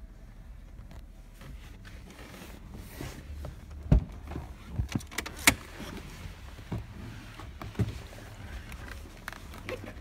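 Handling noise inside a car cabin: a string of sharp knocks and clicks, the loudest about four and five and a half seconds in, over a low steady hum.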